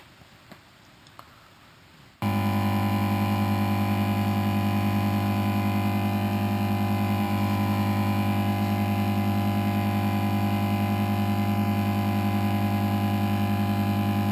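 Lightsaber-style electronic hum, built from layered library hum sounds played through a studio monitor speaker. It cuts in abruptly about two seconds in and then holds as a loud, steady buzzing hum with a strong low drone and a stack of overtones.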